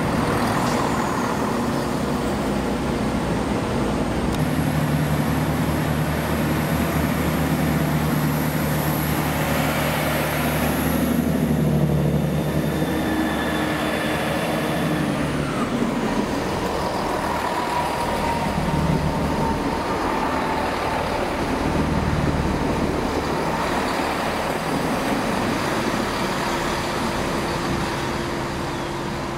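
Diesel train engines running steadily with a low, even engine note. A faint high whine sits over the first half, and the engine pitch shifts a little about halfway through.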